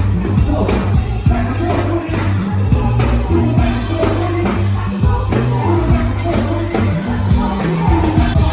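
Live hip-hop and funk band playing at full volume, with a heavy bass line, drum kit and voices singing over the top.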